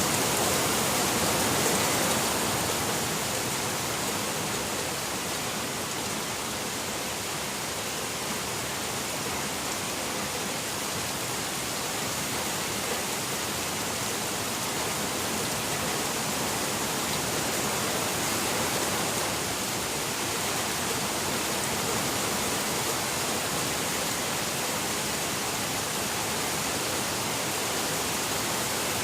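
Steady rain falling, an even, unbroken hiss with no distinct drops or gusts standing out.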